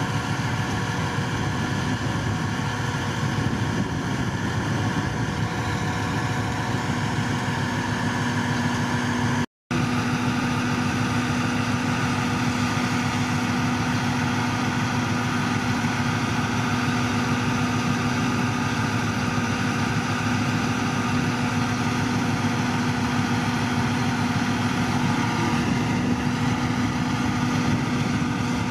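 Heavy diesel engine of a crane truck running steadily. A steady hum joins in about seven seconds in, and the sound drops out for a split second at about ten seconds before carrying on.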